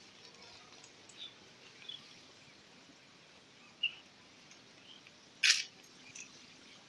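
A few faint, short bird chirps over quiet outdoor background noise, and one loud, brief hissing burst about five and a half seconds in.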